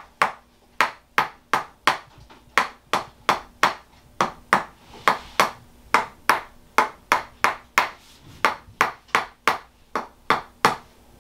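Tok Sen hammer massage: a red mallet striking a tapping stick held against the lower back, giving sharp, slightly ringing knocks about three times a second in a steady rhythm, starting about a second in.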